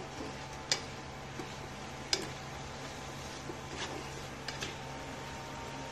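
A metal spatula knocking and scraping against a nonstick wok while stir-frying vegetables: a few sharp clicks, the loudest about one and two seconds in, over a steady low hum.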